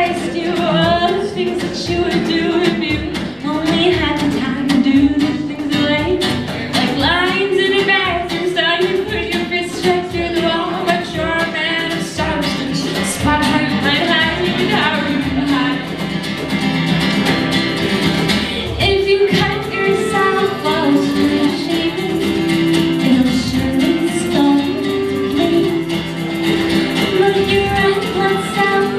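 Live acoustic song: male and female voices singing together over a strummed acoustic guitar.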